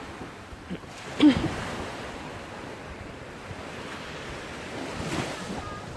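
Sea surf washing on the shore, a steady rush of waves.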